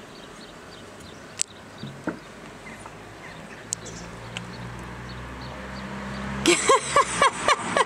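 Quiet outdoor background with a low vehicle hum slowly growing. Near the end comes a quick run of six short yelps, each rising and falling in pitch.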